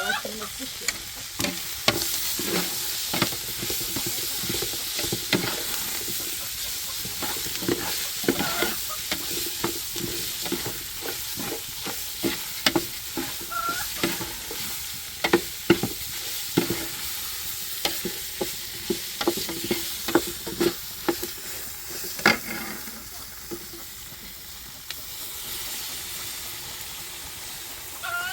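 Food sizzling in a pan while it is stirred, with frequent irregular clicks and scrapes of the utensil against the pan. The sizzle is steady, and the clicking eases off for a short spell near the end.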